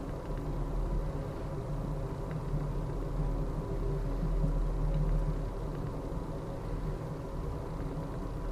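Steady low rumble of a passenger train rolling slowly, heard from inside the car.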